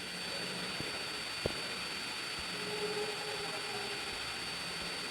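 Steady faint hiss with a thin high-pitched whine, and one light click about a second and a half in.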